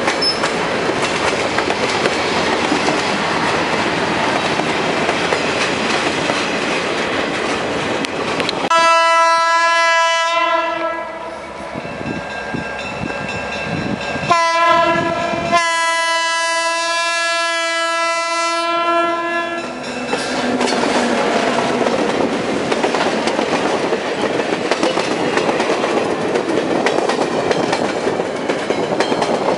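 Passenger train cars rolling past close by, wheels clicking over the rail joints. About nine seconds in, a diesel locomotive horn sounds a long blast, then a short and a long blast, before the rolling noise resumes.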